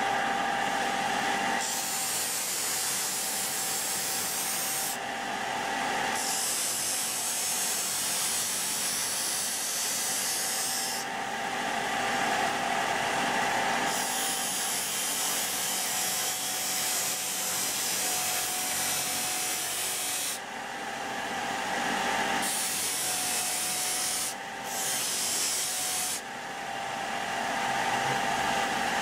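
Disc sander running with a steady motor hum while padauk wood handle scales with steel pins are pressed against the abrasive disc. There are about five long passes of scratchy sanding noise, each breaking off for a few seconds where only the motor is heard.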